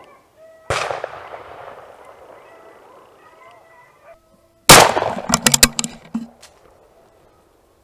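Two gunshots about four seconds apart, each a sharp crack with a long fading echo, the second louder: a first shot that went over the rabbit's head, then a second after reloading. Rattling and rustling of the gun being handled follow the second shot.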